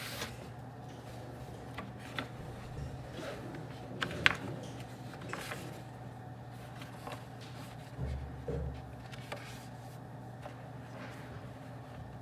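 Office room tone: a steady low hum with scattered light clicks and knocks of small objects being handled, the sharpest about four seconds in, and a dull low thump about eight seconds in.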